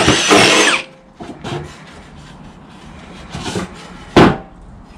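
Cordless drill boring through a softwood board with a flat spade bit, its motor slowing with a falling pitch and stopping within the first second. Then small clicks and handling noise, with one sharp, loud knock about four seconds in.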